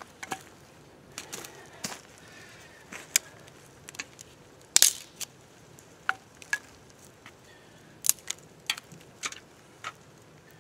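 Split firewood pieces and sticks being set down and knocked against each other and a metal tin on a bed of coals: scattered sharp knocks and clacks, the loudest a little under halfway through and again about three quarters of the way in.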